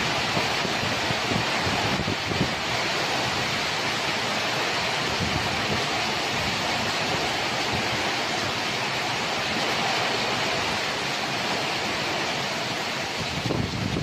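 Heavy thunderstorm rain pouring down with strong wind through the trees, a steady loud rushing. Near the end the rush turns choppy, with wind buffeting the microphone.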